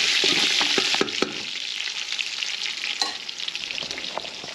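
Pork ribs sizzling as they brown in a large metal pot, with a spoon clinking and scraping against the pot during the first second or so. The sizzle drops quieter about a second in and goes on more faintly, with one more clink near the end.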